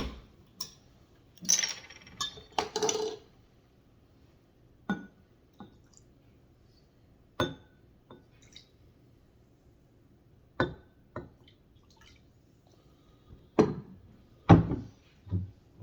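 Soda poured out of a bottle for a few seconds, then glass clinks and knocks of the bottle and cups, spaced a couple of seconds apart.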